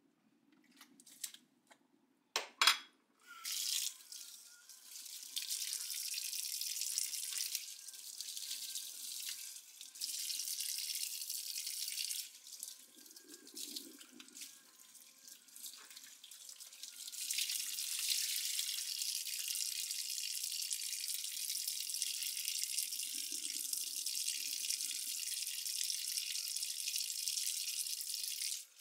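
Water running from a pull-down kitchen faucet into a sink while dishes and a cloth are rinsed under it. A few small clinks and splashes come first, and the tap starts about three seconds in. It runs steadily, drops quieter for a few seconds in the middle, then runs steadily again until it is shut off suddenly at the end.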